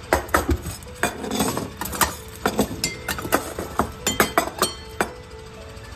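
Stainless steel cat food bowls being handled and set down: a string of sharp metallic clinks and knocks, some with a short ring.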